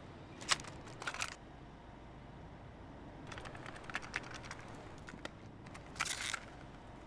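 Faint scattered clicks and light taps, coming in a few short clusters over a low background noise.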